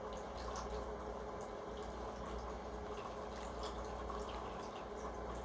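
Faint scattered light ticks and crackles over a steady low room hum.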